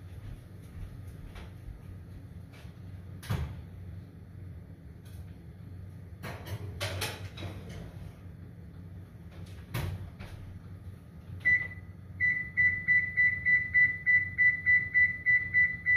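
Oven door and baking dish knocking and clunking as a pan of cinnamon rolls goes into the oven, then the electric range's control panel beeping: one beep, then a steady run of rapid high beeps, about three a second, as the oven timer is set.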